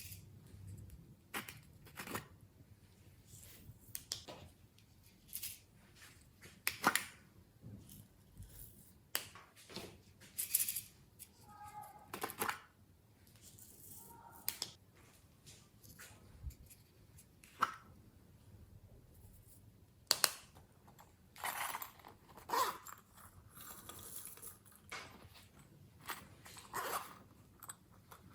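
Glossy slime worked by hand with clay and glitter mixed in: irregular sticky clicks and crackles, a few brief squeaks about twelve seconds in.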